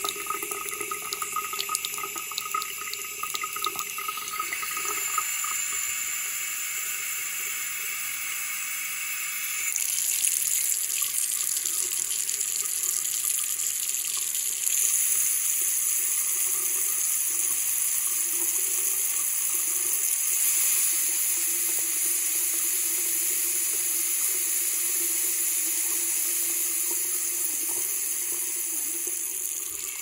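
Tap water running in a steady thin stream into a sink basin beside the drain, a continuous splashing hiss. It grows louder in steps about ten and about fifteen seconds in.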